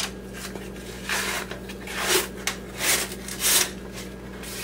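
Four short rubbing, scraping swishes as something is handled at the counter, over a steady low hum.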